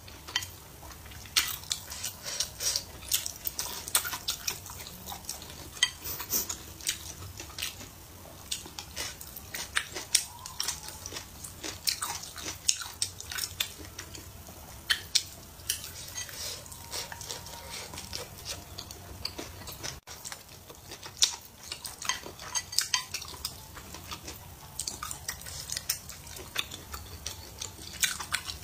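Close-up eating: wooden chopsticks clicking and scraping on a plate, with chewing in between, in many irregular sharp clicks.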